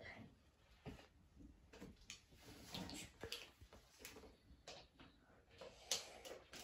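Faint, scattered clicks and knocks of small plastic toy pieces being handled on a carpet, with one sharper click near the end.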